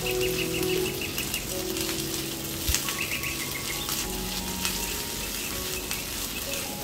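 Onion and dried chilies sizzling and crackling in hot oil in a nonstick frying pan while a silicone spatula stirs them, with one light knock on the pan about three seconds in.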